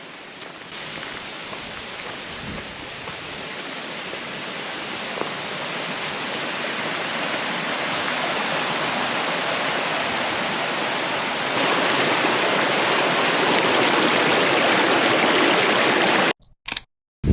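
Steady rushing water noise that grows gradually louder, then cuts off abruptly near the end.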